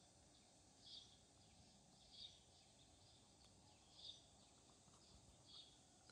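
Faint short bird chirps, four of them, spaced a second and a half or so apart, over a low steady background noise.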